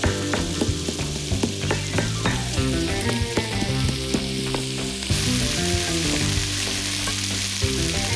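Wooden pestle knocking and grinding garlic, peppercorns and herbs in a stone mortar, in repeated short strikes. About five seconds in, the sizzle of rabbit pieces frying in olive oil in a pan takes over.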